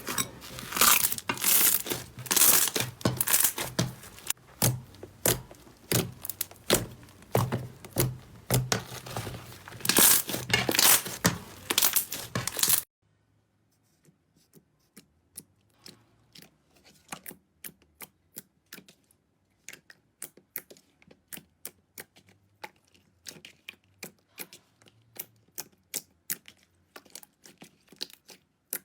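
Slime being squished and pressed by hand, with dense, loud crackling and popping for roughly the first half. After an abrupt cut it turns to much quieter, scattered sharp pops and clicks that come more often towards the end.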